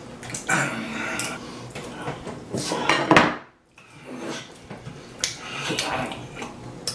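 Loud, wet chewing and lip-smacking of a mouthful of Nutella: irregular sticky smacks and crackles, broken by a short silent gap about halfway through.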